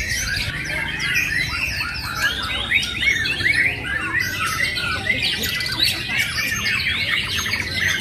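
Many caged white-rumped shamas (murai batu) singing loudly at once, a dense, unbroken tangle of quick overlapping whistles, trills and chirps.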